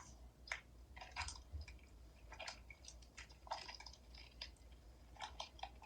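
Slime being squished and worked by hand, a string of small irregular wet clicks and squelches.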